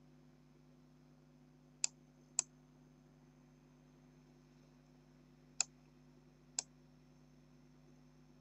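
Computer mouse button clicking four times: two sharp clicks about two seconds in, half a second apart, and two more between five and seven seconds in. A faint steady hum runs beneath.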